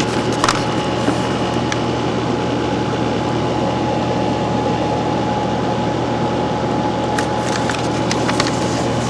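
1980 GE 5,000 BTU window air conditioner running: a steady hum with a constant whine from its rotary compressor and fan. A few light clicks come half a second in and again near the end.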